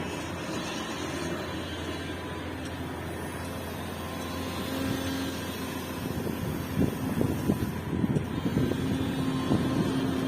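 Hidromek HMK 370 LC excavator's diesel engine running steadily. About halfway through, a run of knocks and clatter starts.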